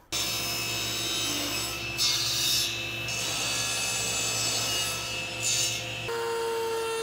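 SawStop 3 HP table saw running at speed and ripping tapers on walnut blanks held in a small-parts taper jig, the cut sound louder twice, at about two and five seconds in. About six seconds in it switches to a different, steadier motor whine.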